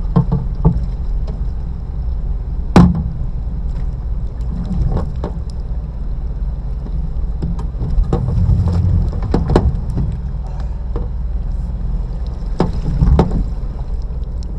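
Electrofishing boat's motor running with a steady low drone, broken by a few sharp knocks, the loudest about three seconds in and more near the middle and toward the end.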